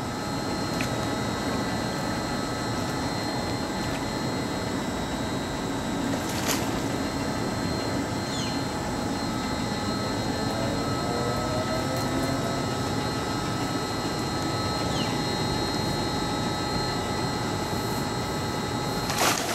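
A steady rushing noise, with a sharp click about six seconds in and a louder knock near the end.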